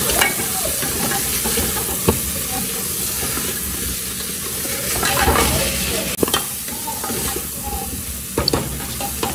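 Meat and onions sizzling as they brown in an aluminium pressure-cooker pot, stirred with a wooden spoon, with a few sharp knocks of the spoon against the pot.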